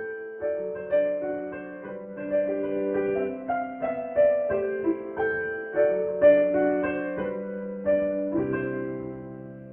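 Background piano music: a gentle melody of struck single notes over chords, ending on a held chord that slowly fades near the end.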